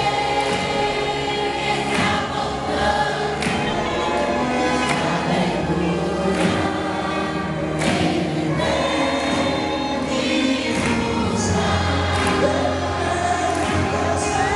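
A youth choir singing a Portuguese gospel song in unison and harmony, with a steady bass and drum beat under the voices.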